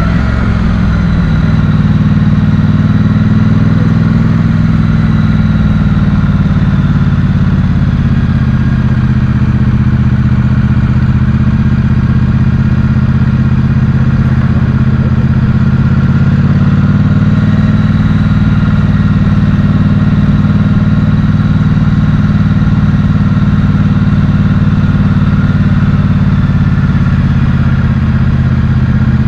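Motorcycle engine running steadily and loudly, its pitch holding nearly even with only slight rises and falls.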